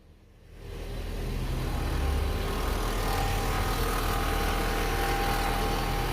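Machinery running steadily: a low rumble with a faint whine over it, swelling up over the first second or so.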